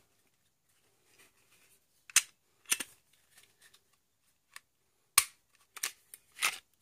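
Sharp clicks and clacks of handguns being handled, about six scattered through a few seconds, the loudest about two and five seconds in.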